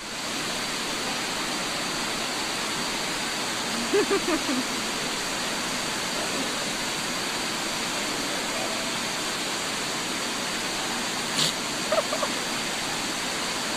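Steady rushing noise of water at an indoor pool, with a small child's brief vocal sounds about four seconds in and again near the end.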